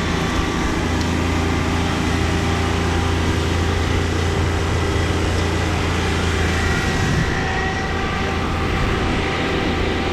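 John Deere 2320 compact tractor's three-cylinder diesel engine running steadily under work, with a slight rise in pitch about seven seconds in.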